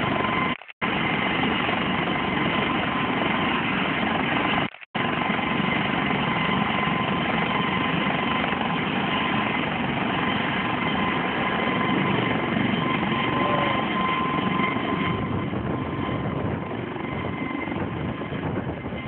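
Helicopter turbine and rotor running steadily: a dense, loud noise with a steady high whine. The sound cuts out completely for a moment twice near the start.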